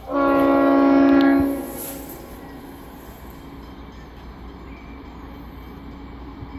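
Train horn sounding one steady blast of about a second and a half from a train approaching the station, followed by a faint steady hum.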